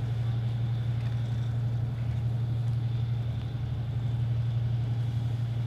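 Steady low drone of military vehicle engines running.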